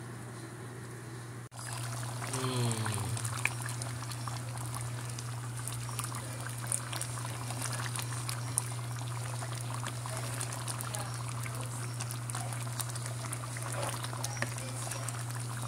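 Pot of red beans and beef sausage bubbling at a simmer: a dense, steady crackle of popping bubbles starting about a second and a half in, over a low steady hum.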